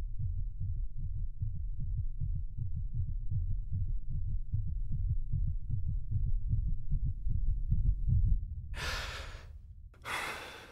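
A heartbeat thumping steadily. About nine seconds in it gives way to two gasping, laboured breaths.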